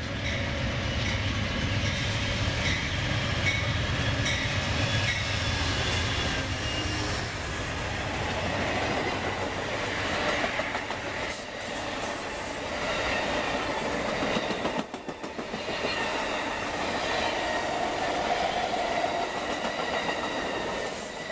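Amtrak passenger train of Superliner bilevel cars passing at speed, with a heavy low rumble for the first several seconds, then steady rolling noise and the wheels clacking over rail joints.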